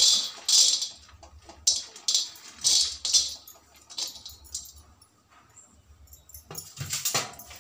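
Cashew nuts are swept by hand off a steel plate into an empty metal kadai. They rattle and patter against the metal in a series of short clatters, ready to be lightly dry-roasted.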